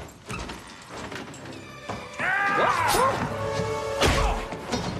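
Music comes in about two seconds in, then a punch lands with a solid thud about four seconds in.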